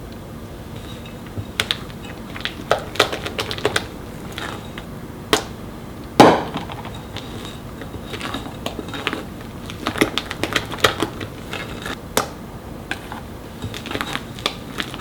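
Irregular clicks and taps of kitchen tools and dishes being handled, with one louder knock about six seconds in.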